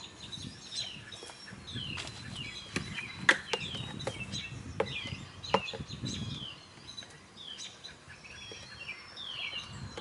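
Small birds chirping throughout, many short calls falling in pitch, with a few sharp clicks and knocks from a plastic box and plastic tubing being handled.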